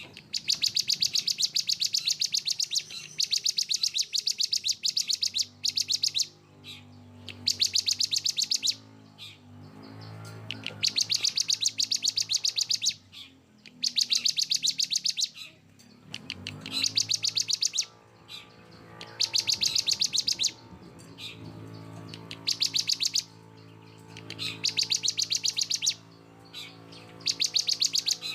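Songbird recording used as masteran training audio: dense, harsh rapid-fire trills in bursts of one to two and a half seconds, repeated about ten times with short gaps. A faint low steady hum runs beneath from about five seconds in.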